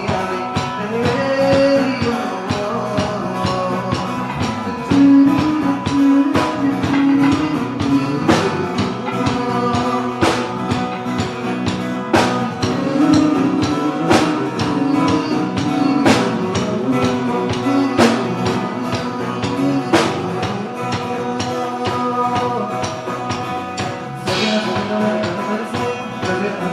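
Live band playing an instrumental passage with no words sung, with a sharp accented hit about every two seconds through the middle.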